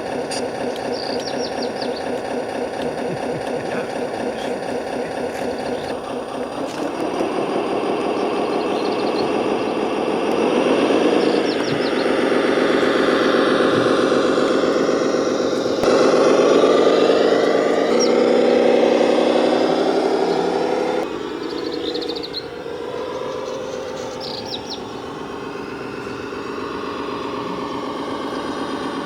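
Radio-controlled construction models running: a steady engine-like hum with many overtones, its pitch sweeping up and back down about ten seconds in, and its tone changing abruptly several times. Birds chirp now and then in the background.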